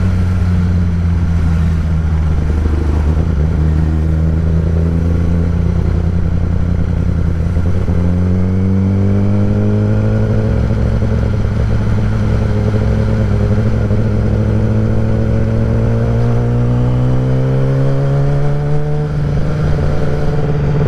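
Kawasaki ZX-10R inline-four through a Graves race exhaust, running steadily. From about eight seconds in its pitch climbs slowly and keeps rising until near the end.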